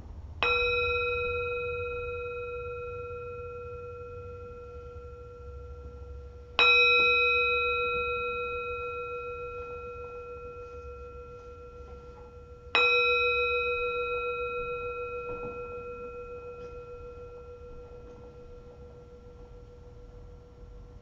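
Small singing bowl struck three times with a mallet, about six seconds apart. Each strike rings out with a clear tone and fainter higher overtones, then fades slowly, rung to open a period of silent meditation.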